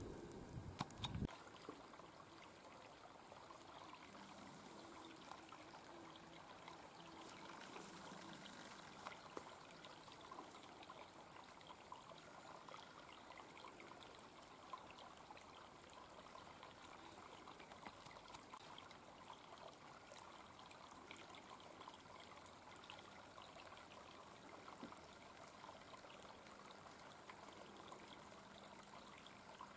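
Faint, steady trickle of a small clear brook running shallow over a pebbly bed. A low rumble cuts off about a second in.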